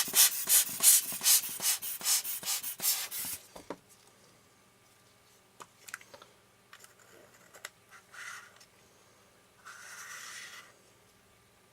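Brisk hand rubbing on a lens part, about four strokes a second for the first three seconds or so. After it come faint small scrapes and ticks, then two short hiss-like sounds near the end.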